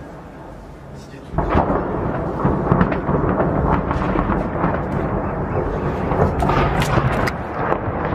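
Uragan multiple-rocket-launcher salvo striking. About a second in, a sudden continuous rolling rumble begins, dense with many sharp cracks of rocket detonations, and keeps going.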